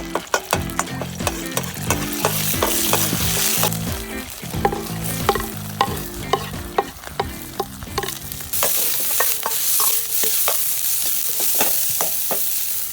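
Food stir-frying in a pan: a utensil knocks and scrapes against the pan many times over a steady sizzle, which gets louder about eight seconds in.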